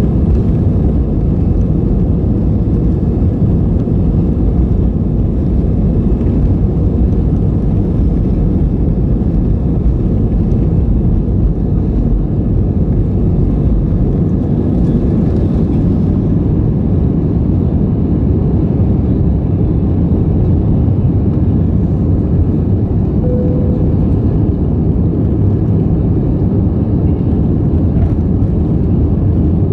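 Airbus A320 jet engines at takeoff thrust heard from inside the cabin: a loud, steady roar through the takeoff roll and climb-out. The deepest rumble eases a little about halfway through.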